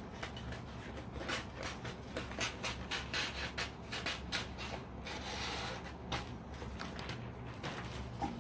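Gift-wrapping paper rustling and crinkling as it is handled and unrolled, with a longer swish about five seconds in.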